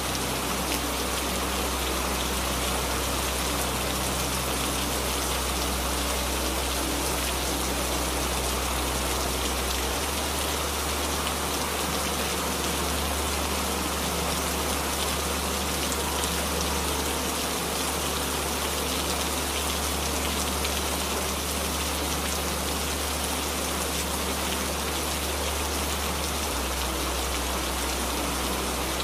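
Steady rainfall, an even hiss of drops with no breaks. A low steady hum runs underneath and shifts in pitch about a third of the way in and again near the end.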